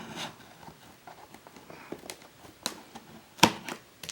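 Handling noise indoors: light taps and clicks with some rustling, and one sharp, loud click about three and a half seconds in.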